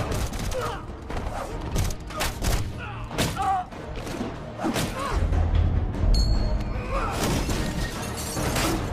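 Dramatic film music under a series of sharp crashes and thuds, with a deep rumble building from about halfway through.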